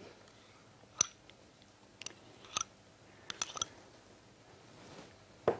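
A metal spoon clinking and scraping against glass as frozen yogurt is scooped from a small glass dish into a glass bowl of berries: a handful of light, short clinks with a brief ring, at uneven intervals.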